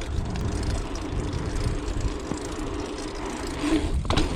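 Steady rumble of wind buffeting the microphone and tyre noise while riding a dirt jump bike, with a brief dip and a couple of knocks near the end.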